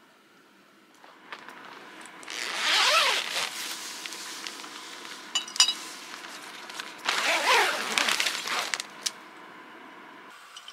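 A tent door zipper run open, then a glass bottle clinking as it is set down against empty soju bottles, then the zipper run closed again. Each zip is a drawn-out rasp of about a second with a falling pitch.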